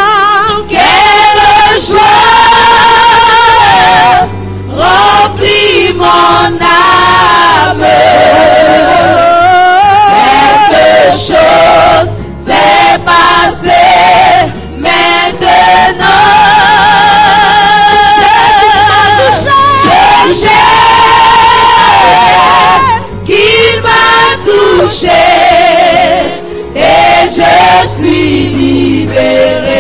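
Choir singing a gospel worship song, male and female voices together, the sung notes wavering.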